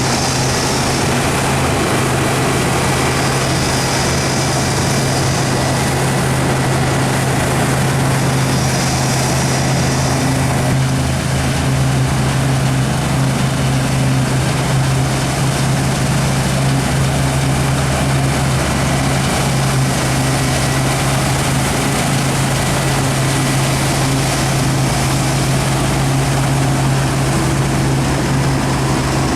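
Heavy diesel farm machinery at a wheat harvest running steadily and loudly, a constant low engine drone under a dense mechanical rush.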